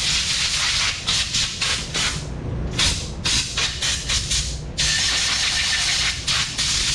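Compressed air hissing out of a powder coating gun, first in short bursts and then, from about five seconds in, a steady blast with a faint whistle in it: the gun being blown clean of powder. A low steady hum runs underneath.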